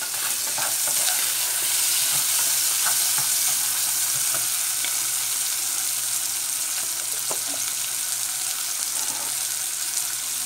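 Pieces of meat and bacon sizzling steadily as they fry in a pot. A wooden spoon stirs them, knocking lightly against the pot now and then.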